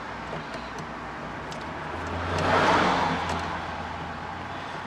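A vehicle passing by, its noise swelling and fading over a second or two, over a low steady hum.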